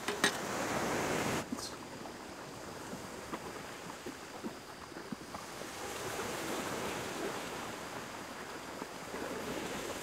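Sea waves washing on a sandy beach, a louder wash in the first second and a half that cuts off abruptly and another swell about six seconds in. Small sharp clicks and taps from handling tableware and a squeeze bottle, the loudest just after the start.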